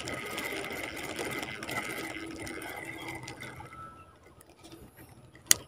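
Spinning reel cranked steadily, its gears whirring as line is wound in; the winding dies away about four seconds in. A single sharp click near the end.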